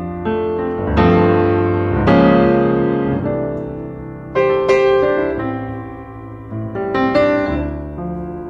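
Background piano music: slow chords struck every second or two and left to ring out.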